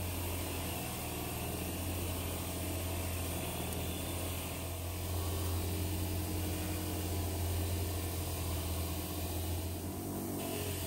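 An electric power tool's motor running steadily with a low hum, having just spun up to speed. The hum falls away near the end as it winds down.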